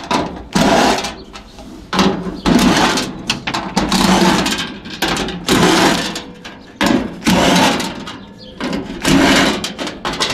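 Cordless DeWalt driver spinning out the screws that hold the fan motors, in a string of short runs, roughly one every second or so.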